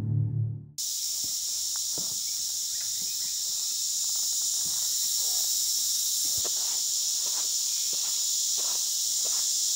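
Steady, high-pitched chorus of insects, with faint scattered ticks beneath it. A music bed cuts off under a second in.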